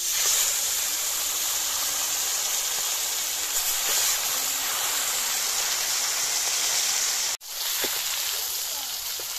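Whole turmeric-coated fish dropped into hot oil in an iron kadai, setting off a loud, steady sizzle of frying that starts suddenly. The sizzle cuts out about seven seconds in and comes straight back.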